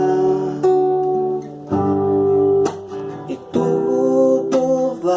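Acoustic guitar strumming an instrumental passage of held chords, the chord changing about once a second.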